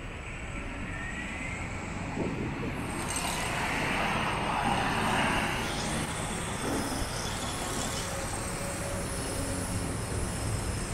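City street traffic noise: a passing vehicle swells about three seconds in and fades by about six seconds, over a steady hum of road traffic.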